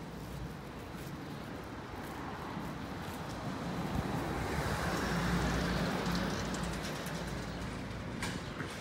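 A car passing by on the street: its engine and tyre noise swells to a peak about five seconds in and then fades away.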